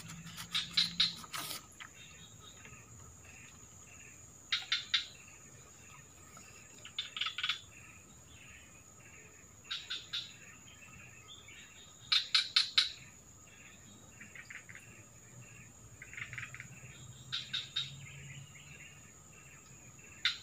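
Forest wildlife: short bursts of three to five quick chirps, repeating every two to three seconds, over a steady high insect drone.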